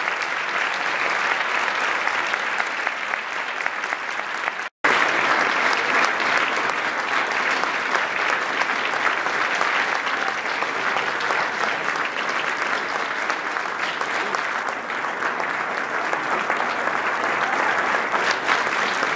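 Sustained applause from an auditorium audience and the dignitaries on stage, a dense, steady clatter of many hands clapping. It cuts out for a split second just under five seconds in, then carries on.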